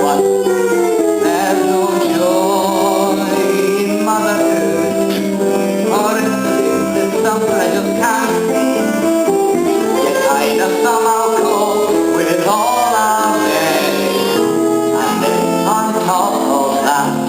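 Voices singing a stage-musical number over instrumental accompaniment.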